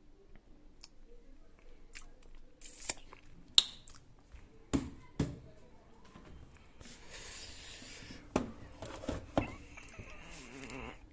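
Kitchen handling noises: a run of sharp knocks and clatters, the loudest about three and a half seconds in, as dishes are moved and a refrigerator door is opened, with soft rustling in the later part.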